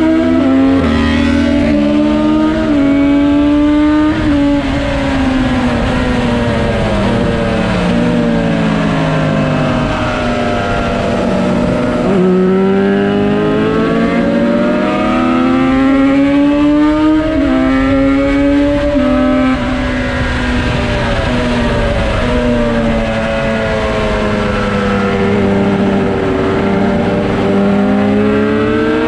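Racing motorcycle's Yamaha RD350 two-stroke twin engine running hard on track, its pitch repeatedly climbing under acceleration and dropping away for corners, with stepped falls through the gears.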